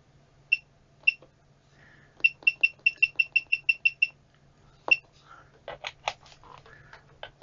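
Keithley 175A multimeter beeping as its front-panel buttons are pressed, each short high beep paired with the click of the key. There are two single beeps, then a quick run of about ten, roughly six a second, then one more, followed by a few clicks without beeps near the end.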